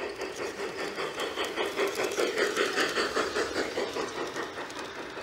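G-scale model steam train running past close by on garden-railroad track, with a rapid, even rhythmic clatter that grows louder as the locomotive and cars pass about two to three seconds in, then eases off.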